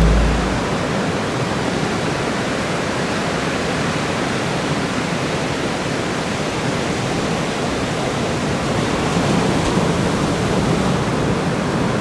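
Steady roar of heavy ocean surf from a typhoon swell, a continuous hiss that swells slightly near the end.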